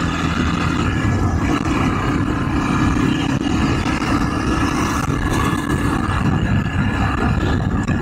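Motorcycle engine running steadily while riding through city traffic, with wind and road noise over the microphone.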